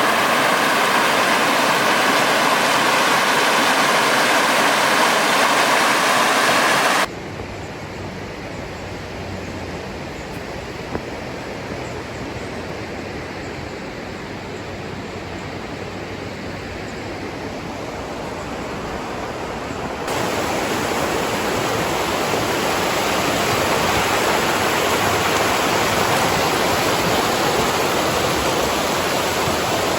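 Rushing water of a gorge river, a steady roar of stream or waterfall noise, changing abruptly twice in level and tone as the recording cuts between spots.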